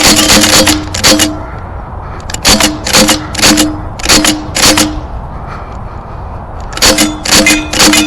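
Air guns firing rapid shots in three volleys, with a short pause between volleys; each shot is a sharp crack with a brief mechanical whir.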